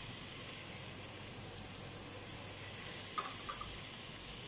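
Spiced chicken pieces sizzling steadily in oil in a pot, a soft even hiss, with a couple of small clicks about three seconds in.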